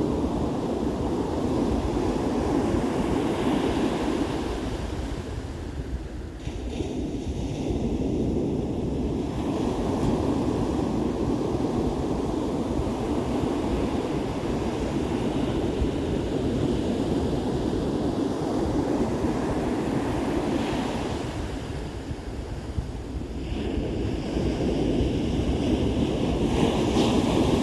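Ocean surf breaking and washing up a beach, a steady rush that eases off twice and builds back up as the waves come in. Wind rumbles on the microphone underneath.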